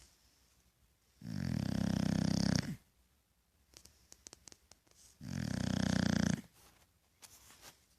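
A dog snoring: two loud, long snores about four seconds apart, each lasting over a second, with faint clicks in the quiet between them.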